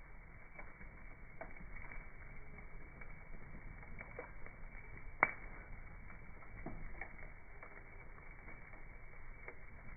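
Bonfire crackling with scattered small pops and one sharp, louder pop about five seconds in. The recording is slowed down to slow motion, so the crackles sound dull and low.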